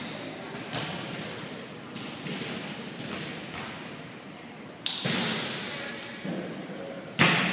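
Volleyball being struck during a rally: several sharp thuds that ring on in a reverberant gym, the loudest about five seconds in and again just before the end. There is a brief high squeak near the end.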